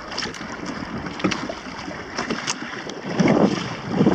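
Wind buffeting the microphone while short chop slaps and splashes against the hull of a Hobie sailing kayak under sail, with a few sharp splash ticks. The wind rumble grows louder about three seconds in, as a gust comes through.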